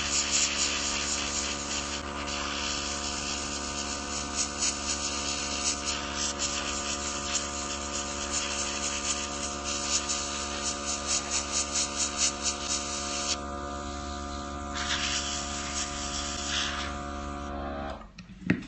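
Nail airbrush spraying paint, a loud air hiss over the steady hum of its small compressor; the hiss comes in quick repeated bursts for a stretch, stops about 13 seconds in, returns for a couple of seconds, and the compressor cuts off near the end.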